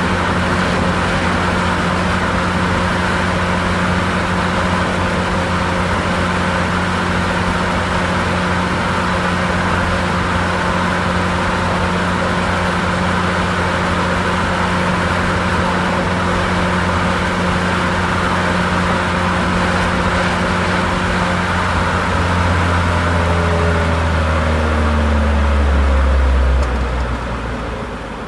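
Car driving at a steady speed: an even engine hum over tyre and road noise. Near the end the engine note falls and the sound drops away.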